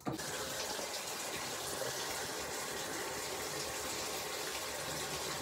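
Water running into a bathtub, turned on abruptly and gushing steadily to bathe a dog.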